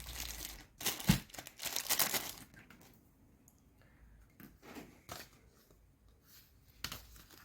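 Small plastic packet being crinkled and torn open by hand, in noisy bursts over the first two and a half seconds, then a few faint rustles and clicks.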